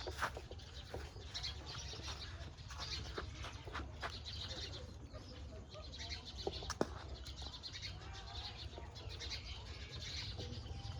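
Birds chirping on and off, with a few sharp clicks and a steady low rumble underneath.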